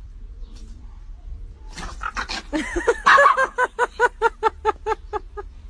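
A small dog giving a quick run of high yaps while play-fighting, starting about two seconds in and settling into about four a second before stopping near the end.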